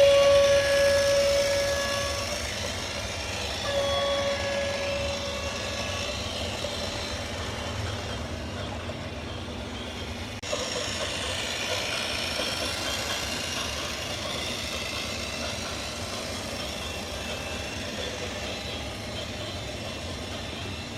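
A loud horn sounds one steady note, held for about two seconds, then blown again briefly, over vehicle rumble. About ten seconds in the sound changes abruptly to other traffic and machine noise.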